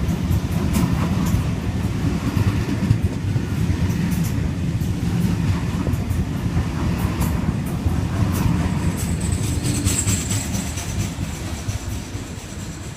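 A Sydney Trains Waratah double-deck electric train passes the platform close by: a steady rumble from its wheels and running gear, with clicks as the wheels cross rail joints. A thin high squeal comes in about nine seconds in, and the sound fades over the last couple of seconds as the last cars pass.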